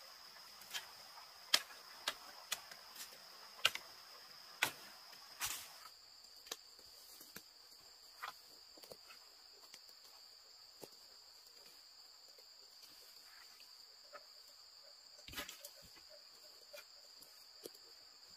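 Steady high-pitched insect buzz, with a second, higher one joining about six seconds in, over irregular sharp clicks and knocks that come thickest in the first six seconds, with one louder knock near the end.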